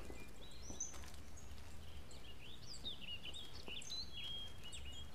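Small birds chirping and whistling in quick short calls, some rising and some falling, over a steady low outdoor background rumble.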